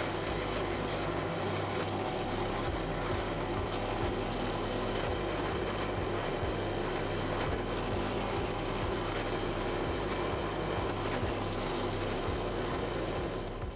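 Drill press motor running steadily with a low hum while its bit drills through two stacked frame pieces at once.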